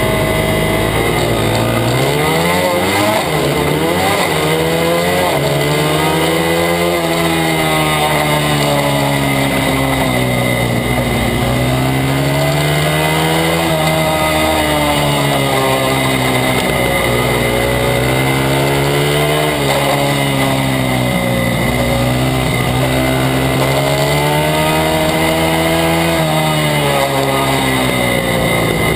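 Honda XR/CRF100's single-cylinder four-stroke engine heard close up during a race: it holds steady briefly, then revs up about a second in and keeps rising and falling in pitch over and over as the bike accelerates and slows around the track. Wind and tyre noise run underneath.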